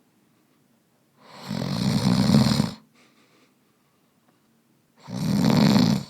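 A man snoring: two loud snores, each about a second and a half long, a little over three seconds apart.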